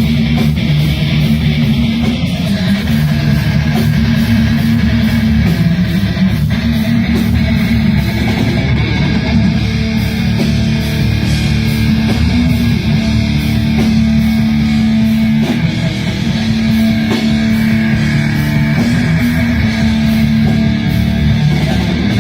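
A live band jamming heavy rock, with electric guitar shredding over bass and a steady drum beat, loud and unbroken.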